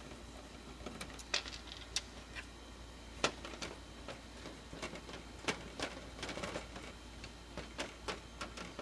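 Scattered small clicks and ticks of a screwdriver working out the screws of a copier's rear cover, metal bit against screw head and panel.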